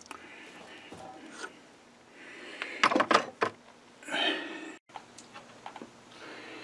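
Workshop handling noises after the lathe has stopped: a few sharp clicks and knocks of hard objects about three seconds in, a short rustle just after, then a few small faint clicks over a low hum.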